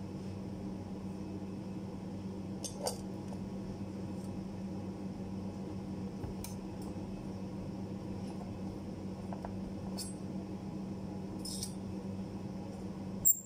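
Light metallic clinks of a steel-rule die blade being handled and set into a hand-lever rule bender, a few scattered clicks, then one sharp metal clack near the end as the lever is worked.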